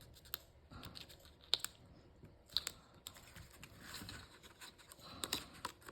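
Faint handling of die-cut paper pieces while they are fitted and pressed together: scattered light clicks and taps with soft rustling between them.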